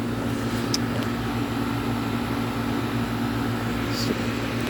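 Goodman GSC13 air-conditioner condensing unit running steadily, its compressor and condenser fan giving an even hum with a fixed tone, cooling normally on its first startup of the season. Two brief high chirps about a second in and again near the end.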